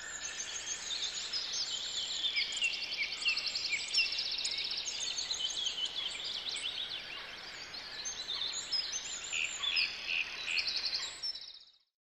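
Several songbirds singing at once, overlapping rapid trills and short chirps, fading out just before the end.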